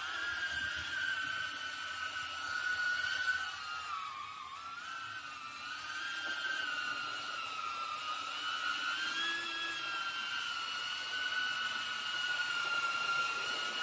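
Brushless motors and ducted 3-inch propellers of a 4S cinewhoop quadcopter (EMAX ECO II 2004 3000KV motors) whining in flight. The high-pitched whine wavers up and down as the motors speed up and slow down, dips about four seconds in, then cuts off suddenly at the end.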